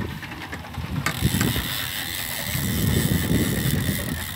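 Big-game trolling reel's clicker and drag buzzing in a steady high whine from about a second in, as a hooked marlin pulls line off the reel.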